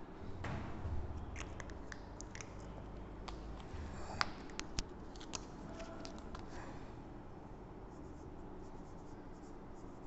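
Marker pen writing on a whiteboard: short, irregular scratching strokes with a few sharper taps, busiest in the first seven seconds.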